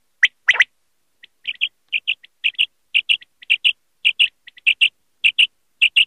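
Common quail calling. Near the start comes one three-note 'whit, wit-wit' phrase: a single note, then a quick double note. After that there is a steady run of short, high paired notes, about two pairs a second.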